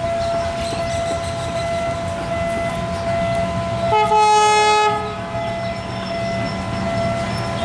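WDM-3A diesel locomotive running as it slowly heads a goods train, with a steady low engine rumble and a steady whine. About four seconds in it sounds its horn in one blast lasting about a second, the loudest sound.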